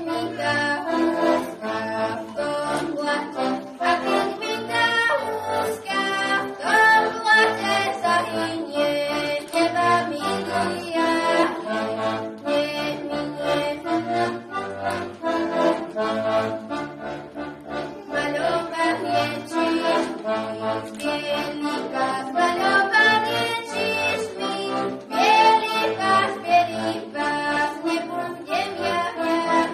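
Accordion playing a Slovak folk song solo: a melody over chords with a steady, regular bass beat.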